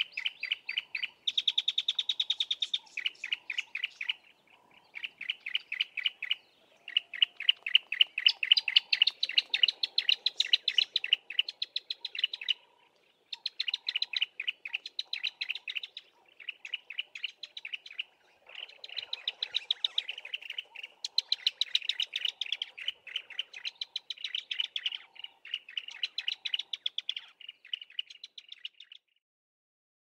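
A pair of bar-throated apalises singing a duet: fast runs of repeated notes, about ten a second, in phrases of one to two seconds with short gaps. Some phrases carry a higher and a lower part together.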